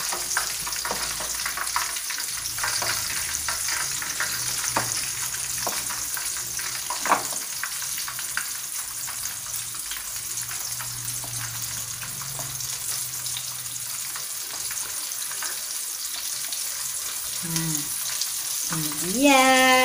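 A catfish coated in crispy seasoned flour frying in hot oil in a wok: a steady sizzle with a few small crackles.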